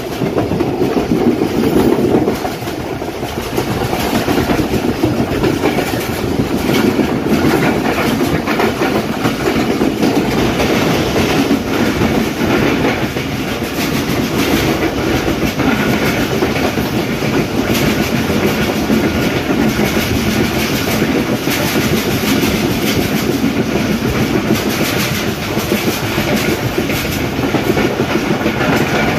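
Moving train heard from an open coach doorway: a steady running rumble with the clickety-clack of wheels over rail joints. Partway through, a rake of freight hopper wagons runs close alongside.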